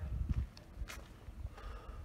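Irregular low rumble outdoors, with a short click about a second in, typical of wind and handling on a handheld phone microphone.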